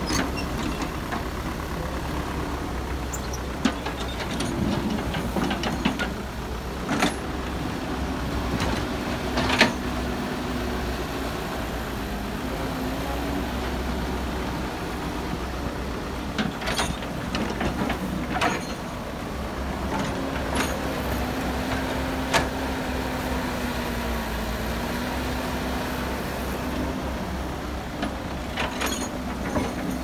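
Caterpillar excavator loading earth into a dump truck: a diesel engine runs steadily, its pitch dipping and rising under hydraulic load. Several sharp knocks and clanks are heard as the bucket and dumped soil hit the truck's steel bed.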